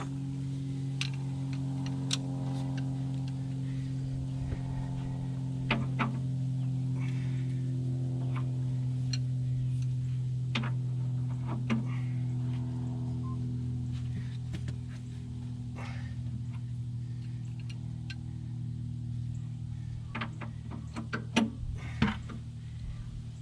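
Metal clicks and knocks of a socket wrench being worked on a very tight drain plug, over a steady droning hum.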